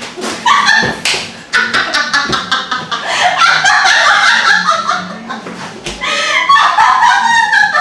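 A plate of whipped cream smacked into a face near the start, then loud, high-pitched laughter in rapid bursts.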